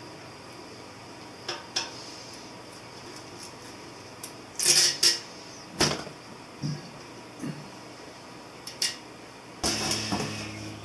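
Scattered small handling noises as masking tape is pressed and rubbed down on a painted motorcycle gas tank: a few rustles, clicks and light knocks, the loudest about halfway through. Near the end a steady low hum comes in.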